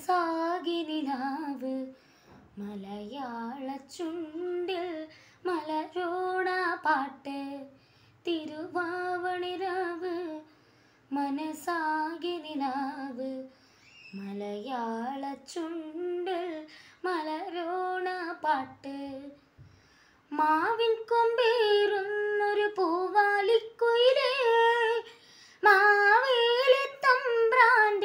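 A child singing a Malayalam song unaccompanied, in phrases of about two seconds with short pauses between them; from about twenty seconds in the singing grows louder and runs on with fewer breaks.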